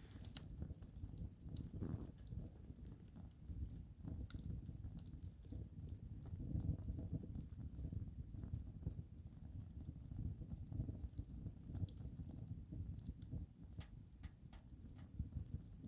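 Wood fire crackling, with scattered sharp pops and snaps over a low steady rumble.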